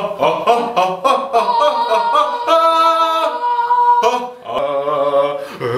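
A man and a woman singing together without words, first in quick short notes, then in several long held notes.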